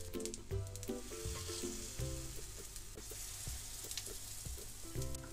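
Batter-coated roti squares sizzling as they shallow-fry in a little oil in a cast-iron skillet, while oil is spooned over them. Background music plays over the frying.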